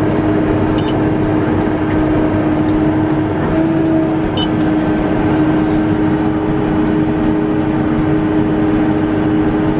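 Tractor engine droning steadily inside the cab while pulling a planter, with a strong constant hum. Two short faint high chirps sound, about a second in and again near the middle.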